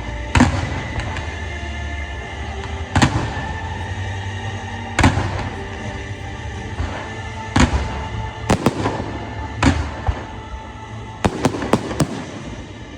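Fireworks going off, sharp bangs every second or two with short echoing tails, and a quick cluster of four bangs near the end, over a music soundtrack.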